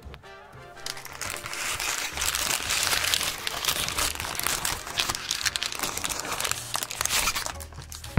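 Paper wrapping crinkling and rustling as it is unfolded by hand, starting about a second in and dying down near the end, over background music.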